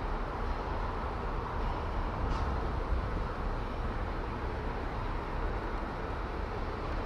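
Steady outdoor background noise: a low rumble under a hiss, with a brief faint high chirp about two and a half seconds in.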